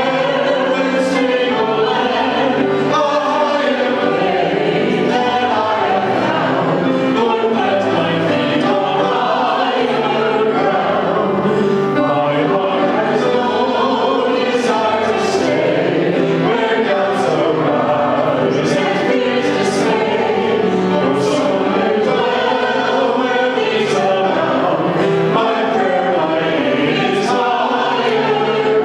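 A choir singing a hymn, many voices together at a steady level.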